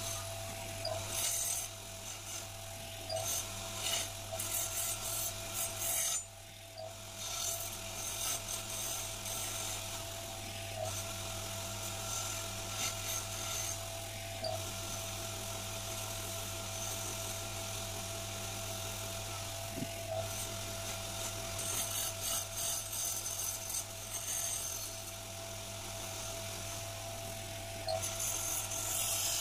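A wood lathe runs with a steady hum and whine while a hand chisel cuts and scrapes a spinning wooden spindle. The cutting noise comes and goes in spells as the tool is pressed to the wood and eased off, with a short lull about six seconds in.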